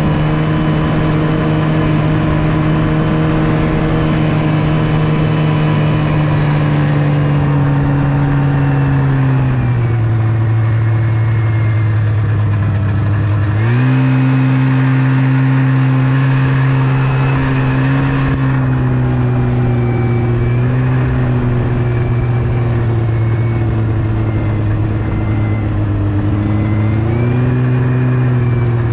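Yamaha Venture snowmobile engine running under way, loud and steady. It eases off and drops in pitch about a third of the way in, then picks up sharply about halfway through, with a brief extra hiss, before dipping and climbing again near the end.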